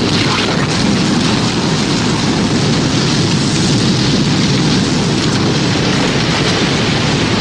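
Tornado sound effect: a loud, steady roar of storm wind and heavy rain, with no siren heard.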